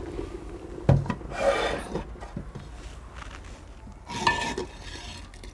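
A metal cooking pot being lifted off the stove and set down: a loud clunk about a second in, followed by metal scraping, and another scrape with a short metallic ring about four seconds in.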